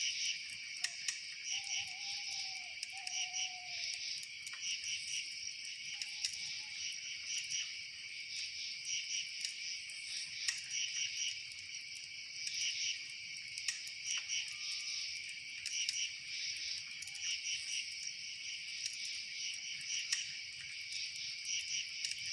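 A chorus of crickets chirping steadily in pulsed trills, with scattered sharp clicks and a few short low calls in the first few seconds.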